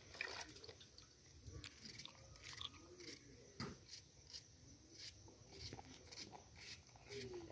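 Kitchen knife slicing a red onion held in the hand, a faint irregular run of crisp crunches and clicks.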